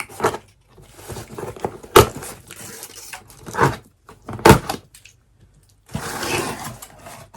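Packaging being opened by hand: tape being pulled off and cardboard and paper crackling and scraping. There are several short, sharp rips, the loudest about 2 and 4.5 seconds in, then a longer rustle near the end.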